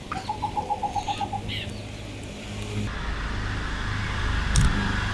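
A bird calling in a quick run of about ten short, evenly spaced notes, with fainter higher chirps. A steady low hum comes in about three seconds in, and there is a single sharp click near the end.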